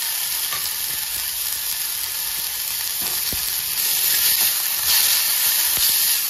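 Chopped onions sizzling steadily in hot ghee in an iron kadhai, with a metal ladle stirring them and now and then scraping or tapping the pan.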